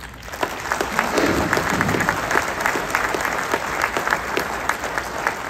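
Audience applauding. The clapping rises quickly at the start and then holds steady.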